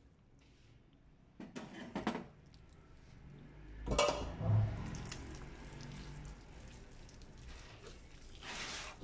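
Hands handling a raw chicken being deboned: wet rustling of skin and meat, with a few knocks and clatters against a bowl and a stainless-steel counter, the loudest about four seconds in.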